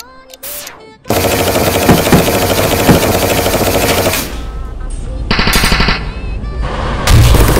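Loud, dense barrage of rapid repeated bangs that starts suddenly about a second in, like sustained automatic gunfire. A brighter, faster rattle comes through near the middle, and the barrage swells again near the end.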